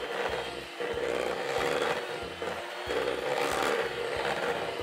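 Electric hand mixer running steadily at speed, its beaters churning a thick buttercream of butter, cream cheese and powdered sugar in a stainless steel bowl.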